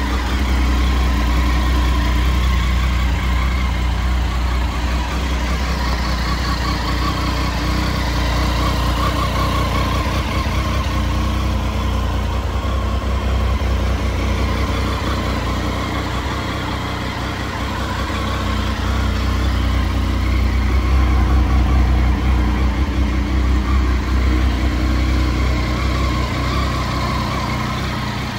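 Triumph Tiger 800 XC's three-cylinder engine idling.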